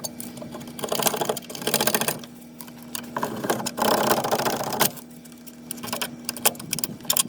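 Rear brake drum being worked loose from the hub: metal rattling and scraping in two bursts of rapid clicks, about a second in and again around four seconds, with a few single knocks after, over a steady low hum.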